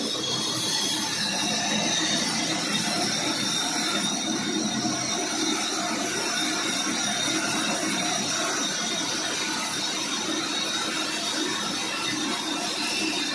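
Sawmill saw running and cutting wood: a steady, even noise with a faint high whine over it.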